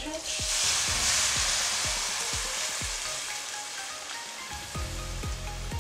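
Kadhi batter of gram flour and yogurt poured into a kadai of hot oil with a ginger-garlic tempering, sizzling. The hiss is loudest as the batter first hits the oil and fades over the next few seconds.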